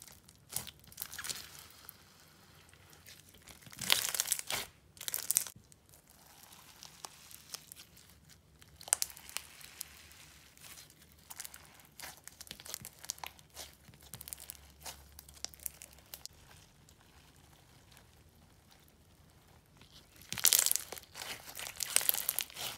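Clear slime full of slushy beads being stretched and squished, crunching and crackling in many small clicks, with louder bursts of crackling and popping about four seconds in and again near the end.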